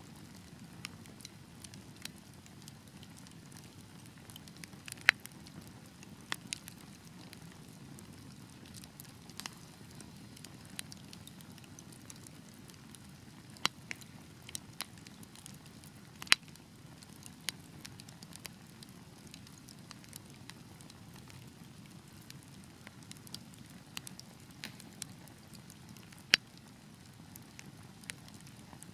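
Wood fire burning in a fireplace: a steady low rumble of flames with scattered crackles and sharp pops, three of them louder than the rest.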